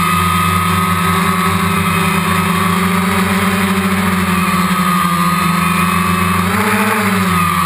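DJI Phantom quadcopter's motors and propellers whining steadily, heard through a GoPro's waterproof housing. Their pitch swings up and back down about seven seconds in as the motors change speed.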